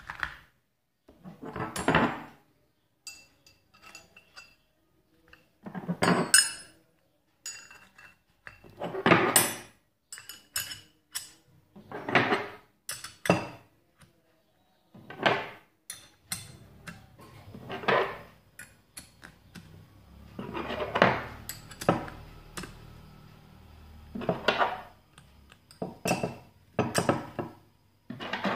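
Stanley chrome vanadium open-end spanners clinking and clattering against each other as they are handled and slid into a plastic holder rack, in irregular bursts every few seconds, some with a short metallic ring.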